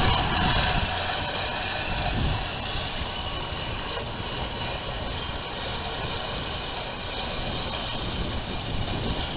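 Gusty wind buffeting the microphone: a steady low rumble with a rushing hiss above it, rising and falling slightly.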